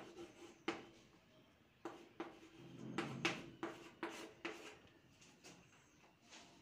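Chalk writing on a blackboard: a series of about ten short, sharp taps and scratchy strokes at uneven intervals, fairly faint.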